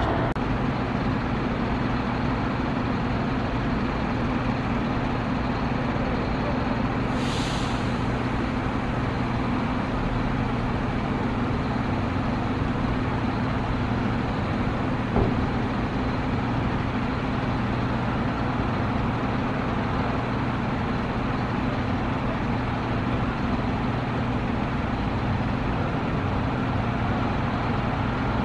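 Boeing 747-400 freighter's four jet engines running at idle as the aircraft slows and rolls out after landing, a steady low rumble. A short hiss about seven seconds in.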